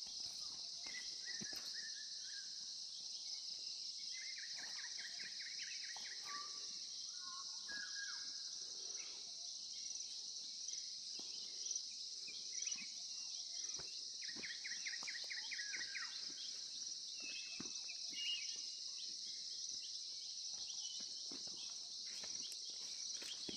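A steady, high-pitched chorus of insects running without pause, with bird calls over it: a rapid trilling phrase that comes twice, and scattered short whistled notes.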